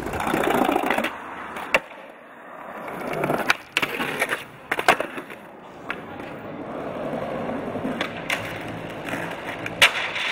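Skateboard wheels rolling on concrete, broken by several sharp clacks of the board: tail pops, landings and the deck striking ledges.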